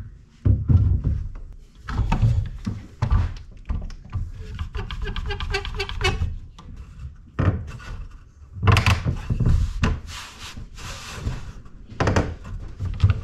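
Mahogany boards knocking and sliding on a wooden workbench as they are set edge to edge. About five seconds in, a one-handed bar clamp clicks rapidly as it is squeezed tight across them.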